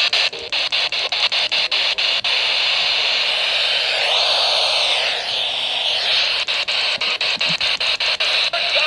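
Loud radio static from a weather radio receiver on a weak NOAA Weather Radio signal: a steady hiss broken by rapid, irregular dropouts, with the warning broadcast lost under it.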